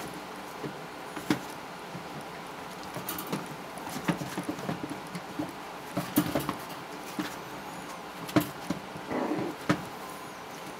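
Four-week-old Havanese puppies play-wrestling: scattered scuffles and taps of paws and bodies on the bedding, mixed with small puppy noises. The scuffling comes thickest in the middle, and there is a longer rustle about nine seconds in.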